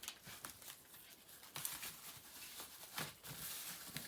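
Rustling, crinkling and light clicks of box packaging being handled during an unboxing, with a few louder crinkles about one and a half and three seconds in.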